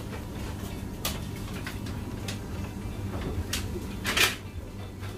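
Brown paper takeaway bag crinkling and rustling as it is opened and set on a steel counter, in several short rustles, the loudest about four seconds in, over a steady low hum.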